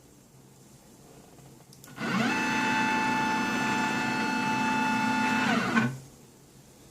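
CNC machine motor running at a steady whining pitch for about four seconds: it starts about two seconds in with a quick rise in pitch and stops with a quick fall.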